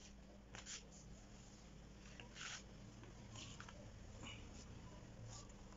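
Faint, brief scuffs and taps of sandals being set down and shifted on a concrete floor, a few times, over a low steady hum.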